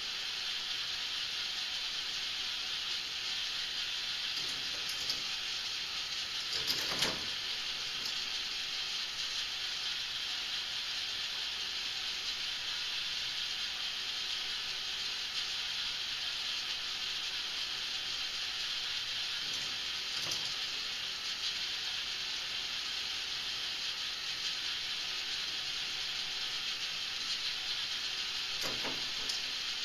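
K'nex Motorized Madness ball machine running: a steady hissing whir from the motor-driven lift and balls rolling along the plastic track, with a few louder clacks of balls, the loudest about seven seconds in.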